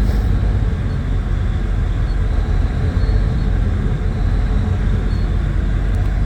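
Steady low rumble of a ferry's engines, heard on board, with an even noise over it and no change throughout.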